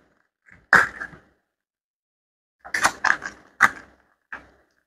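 A few sharp clicks and knocks from handling a hair clipper and a small part taken from it: one near the start, a quick cluster around three seconds in, and a softer last click near the end.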